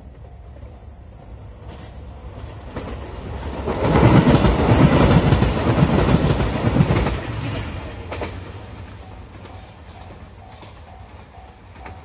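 JR Shikoku 2700 series diesel limited express train passing at speed. It builds up, is loudest from about four to seven seconds in with rapid clatter of wheels over the rails, then fades away. A level-crossing warning bell rings faintly in a steady on-off pattern at the start and again near the end.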